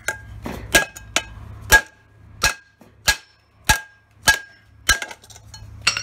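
Claw hammer striking the metal stub of a saucepan's broken-off handle to bend it into a hook: about ten blows, roughly one every half second or so, each with a short metallic ring from the pan.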